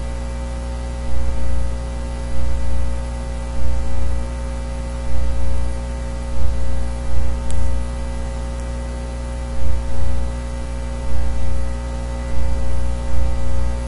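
Steady electrical mains hum and hiss from the recording setup, with soft low thumps every half second to a second.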